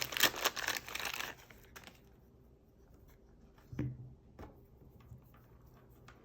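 Plastic crinkling and rustling as a power outlet socket is handled, stopping after about a second, then two short knocks near the middle.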